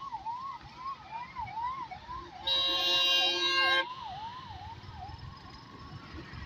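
A siren wailing up and down about twice a second, fading away after about five seconds, over traffic noise. A vehicle horn blares for over a second about two and a half seconds in.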